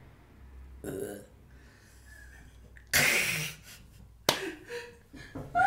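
A young woman gives a short burp, then a loud breathy burst of laughter, with a sharp click just after four seconds and bits of laughing voice near the end.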